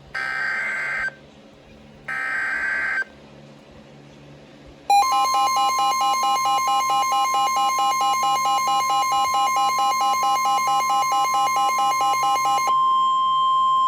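NOAA Weather Radio SAME alert: two one-second bursts of the warbling digital data header, then after a short gap the steady 1050 Hz warning alarm tone for about nine seconds. A fast pulsing electronic beep runs with it and stops about a second before the tone ends.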